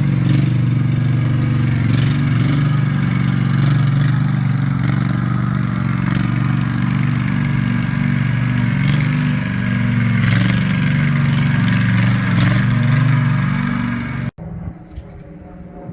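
A running engine, a loud steady drone that cuts off abruptly near the end.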